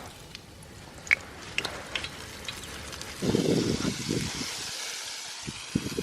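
Battered chunks of northern pike going into a pan of hot grease: a few sharp clicks, then about three seconds in the oil breaks into loud sizzling with crackles.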